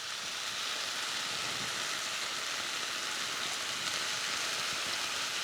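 Onions, garlic, ginger, lemongrass and chilli frying in coconut oil in a pan, sizzling steadily.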